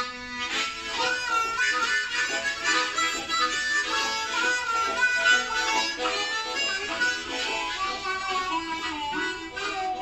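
Three harmonicas playing a blues jam together, several notes sounding at once, with some notes bending down in pitch.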